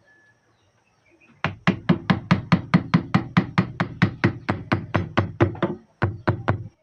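Mallet striking a carving chisel into wood in a fast, even run of taps, about four or five a second, with a short break near the end before a few more.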